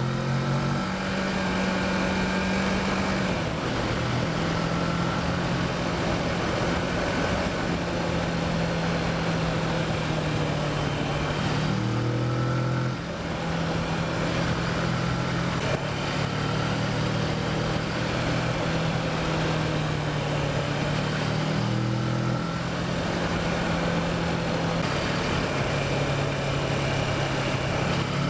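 Kawasaki Versys motorcycle engine running under way, its pitch shifting down and up several times with throttle and gear changes, over a steady rush of wind.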